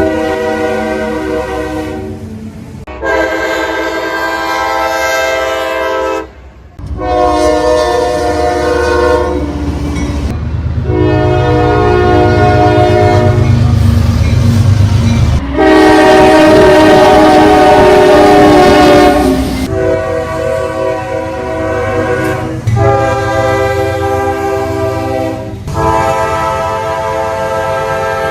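Train horns: a run of short clips of locomotive chord horns blowing, several notes sounding together, each cut off suddenly as the next begins, with a low rumble of the passing train under several of them. The longest and loudest blast comes a little past halfway.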